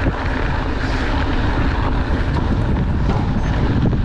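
Steady rush of wind on the microphone mixed with mountain bike tyres rolling fast over a gravel road, with small knocks and rattles from the bike over the bumps.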